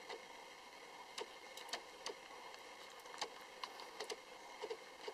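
Three-day-old Lhasa Apso puppies suckling at their mother's teats: faint, irregular little clicks and smacks, two or three a second, over a low hiss.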